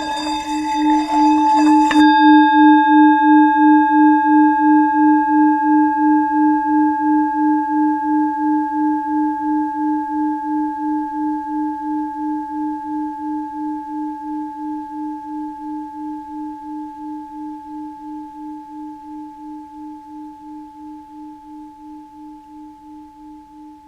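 Tibetan singing bowl being rubbed around its rim, building to a loud, rough, singing tone. About two seconds in, the rubbing stops and the bowl rings on alone: a low, pulsing hum with fainter higher overtones, slowly fading away.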